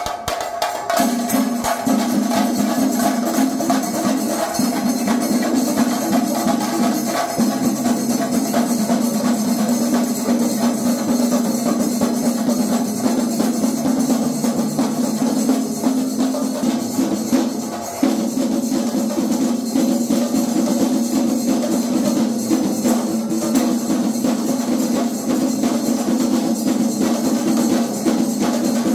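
Chenda melam: a group of chenda drums beaten with curved sticks in a fast, dense, unbroken roll, with a brief dip about 18 seconds in.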